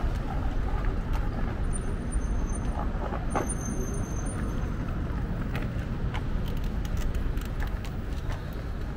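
City street ambience: a steady rumble of road traffic, with scattered short clicks over it.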